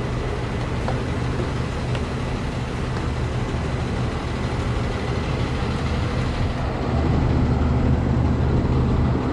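Vehicle engines idling, a steady low hum that grows louder about seven seconds in.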